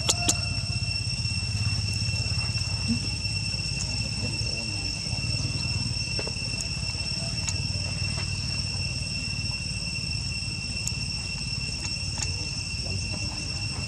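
Steady high-pitched drone of insects, two even tones held without a break, over a low rumble, with a few sharp clicks right at the start.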